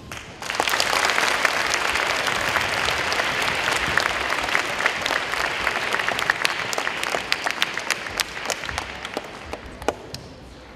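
Audience of schoolchildren applauding, starting about half a second in and thinning to scattered claps near the end.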